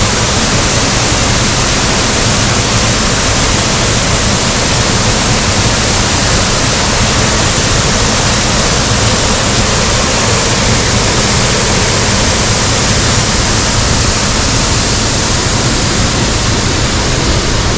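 Loud, steady rush of a waterfall's falling water.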